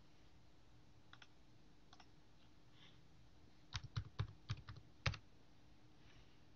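A few faint clicks, then a quick run of about seven keystrokes on a computer keyboard a little under four seconds in: a short PIN code being typed.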